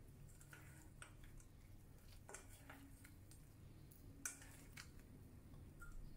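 Faint, sticky squishing of sauce-coated shrimp being tossed with chopsticks in a stainless steel bowl, with a few light clicks of the chopsticks against the bowl, the sharpest about four seconds in.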